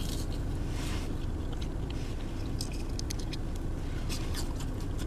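Close-up eating sounds: chewing with small wet clicks and squishes as a sauce-dipped waffle fry is eaten, over the steady low hum of a car interior.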